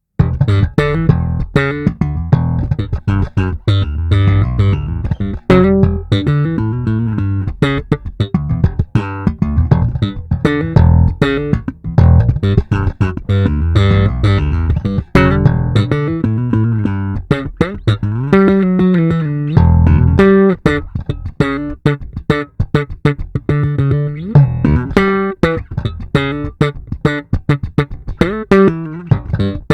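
Epiphone Les Paul Deluxe electric bass played with a continuous run of plucked notes, with a slide up in pitch about two-thirds of the way through.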